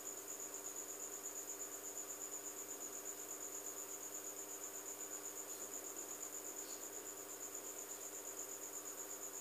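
A cricket chirping in a steady, high-pitched trill that pulses evenly several times a second, over a faint low hum.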